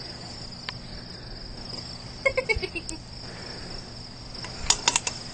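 Insects chirring steadily in a grassy field, with a toddler's short falling vocal sound about two seconds in and a quick run of clattering knocks from the metal dishes near the end.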